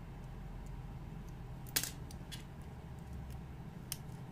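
Plastic building bricks clicking as they are pressed together by hand: one sharp snap a little under two seconds in, a weaker click soon after, and another short click near the end.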